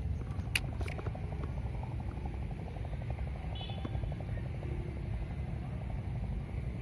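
Baitcasting reel being cranked to retrieve a lure, a fast even ticking for a few seconds in the middle, over a low wind rumble on the microphone. Two sharp handling clicks near the start.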